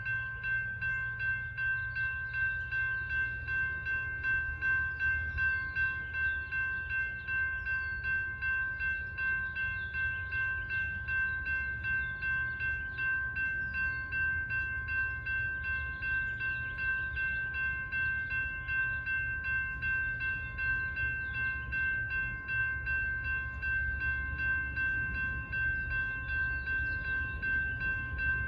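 Railroad grade crossing warning bells ringing steadily and continuously on an activated crossing. A low rumble builds toward the end as the approaching train nears.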